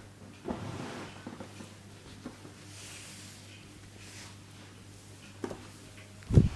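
Head massage: the barber's hands rubbing and working through the hair and scalp, with a soft thud, a sharp knock and, near the end, a loud dull thump.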